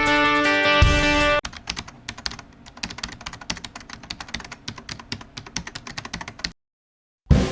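Rapid, irregular computer-keyboard typing clicks, lasting about five seconds after the music cuts out, then stopping suddenly.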